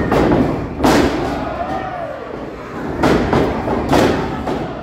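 Heavy thuds of wrestlers' bodies slamming onto the wrestling ring's mat: four sharp impacts, one at the start, the loudest about a second in, and two near the end about a second apart.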